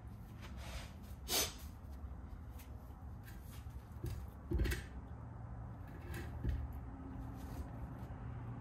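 Scattered knocks and clicks of a trailer axle's brake-drum hub being handled and turned by hand, with a sharp knock about a second in and a heavier thump a few seconds later, over a steady low hum.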